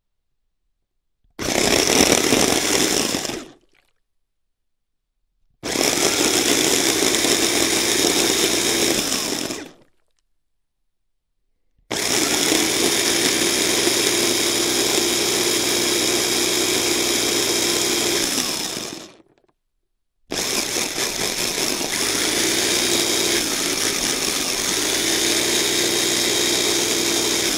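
Electric chaff-cutter motor switched on and run in four bursts, each longer than the last, with short silences between. Each burst starts abruptly, runs steadily, and trails off as the motor spins down.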